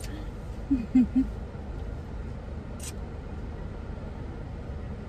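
Car engine idling, heard from inside the cabin as a steady low rumble, with a brief murmur of a voice about a second in and a single light click near the middle.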